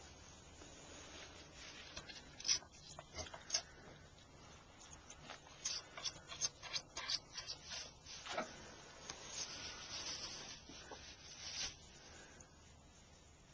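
Irregular rubbing and rustling, with a run of short scrapes through the middle that thins out near the end.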